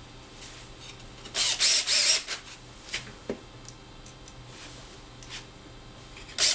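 Cordless drill/driver driving screws into the wooden wine rack, in short trigger pulses about a second and a half in, with a few sharp clicks of the screws and rack afterwards.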